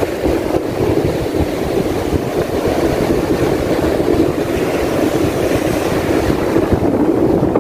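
Wind buffeting the phone's microphone in a steady, loud rumble, with surf breaking on the beach mixed in.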